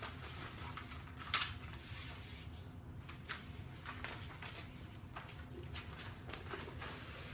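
Faint rustling and crinkling of adhesive vinyl wrap and its backing paper being handled, in scattered short strokes with the clearest about a second and a half in, over a steady low hum.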